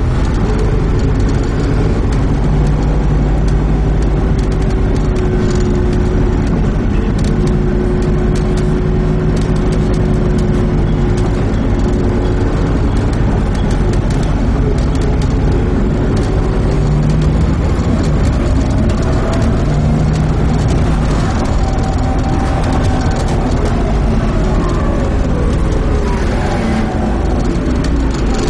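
Volvo B7TL double-decker bus's engine and ZF Ecomat automatic gearbox pulling the bus along, the engine note drifting up and down with speed and a gliding drivetrain whine in the second half.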